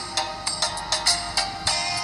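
Background music: bright, plucked-sounding notes over a steady, quick beat of about four notes a second.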